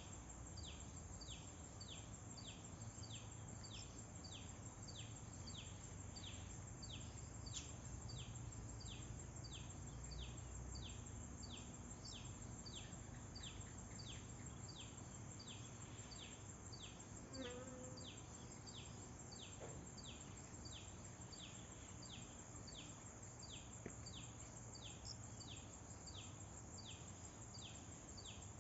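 Insects calling: a steady high-pitched drone under a short, falling chirp repeated evenly about twice a second.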